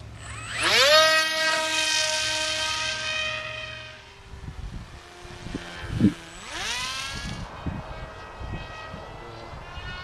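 Brushless electric motor and propeller of a Dynam EZ Hawk RC glider throttling up to a high, steady whine about half a second in, fading after about four seconds as the plane flies off, then whining up again near seven seconds. Low wind thumps on the microphone in between.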